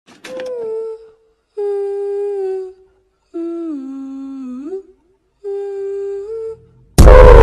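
A voice humming a slow tune of four held notes, each about a second long with short pauses between; the third note dips lower and slides back up. A loud, noisy sound cuts in at the very end.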